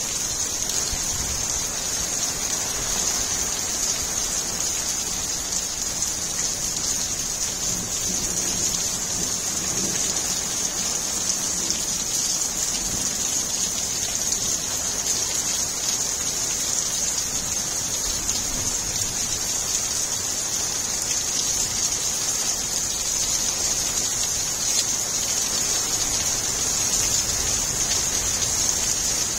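Heavy monsoon rain falling steadily, large drops pattering on gravel, puddles and pavement.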